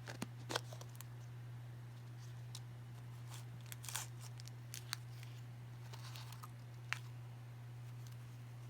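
Hands handling and opening a toy surprise egg's packaging: scattered sharp clicks and short crinkling and tearing rustles, with a steady low electrical hum underneath.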